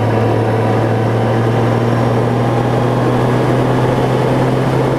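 Honda Gold Wing motorcycle cruising at a steady speed: an even, unbroken engine drone under a steady rush of wind and road noise.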